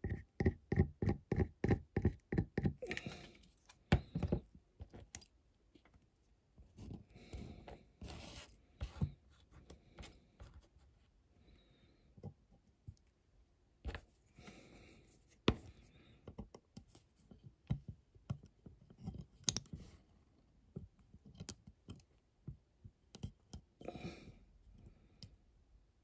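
Small handling sounds on a diecast toy car body: a quick run of squeaky clicks for the first few seconds as a plastic glue bottle is squeezed, then scattered taps, clicks and short rustles as thin foil patches are pressed and worked into place.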